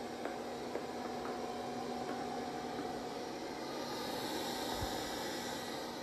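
Samsung Bespoke Jet Bot Combo AI robot vacuum running in vacuum mode on a shag rug, its mop pads lifted and stopped: a steady whirring hum with hiss. The hiss grows stronger about four seconds in, then eases.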